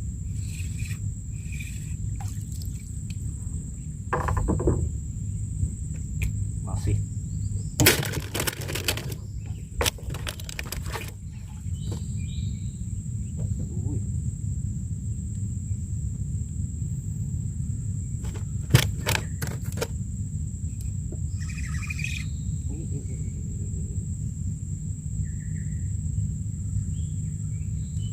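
Outdoor ambience: a steady high insect drone over a low rumble, with scattered clicks and knocks. The knocks bunch together about eight to eleven seconds in and again near nineteen seconds.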